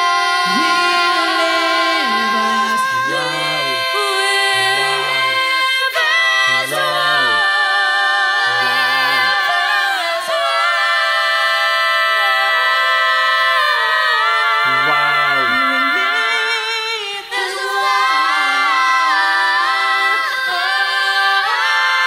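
Four female voices singing a cappella in close harmony: held chords with vibrato and gliding vocal runs, and a lower voice moving underneath.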